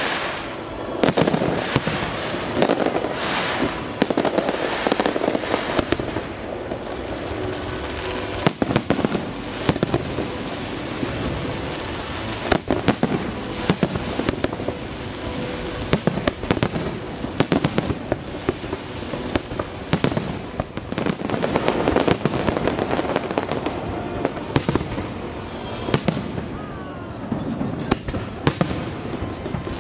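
Aerial firework shells bursting in a continuous barrage, bang after bang with no pause, at times several a second.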